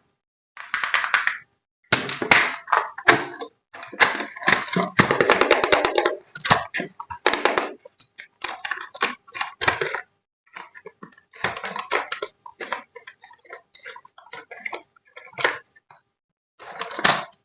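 Toy packaging being handled: stop-start crinkling and rustling of plastic and cardboard, with clicks and light knocks, and a longer stretch of dense crackling about five seconds in.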